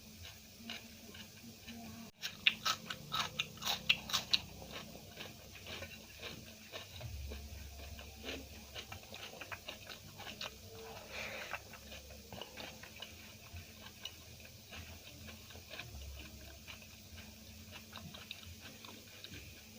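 Close-up chewing of Indian food; from about two and a half seconds in, a run of loud crunches from biting crisp food, then steady softer chewing clicks.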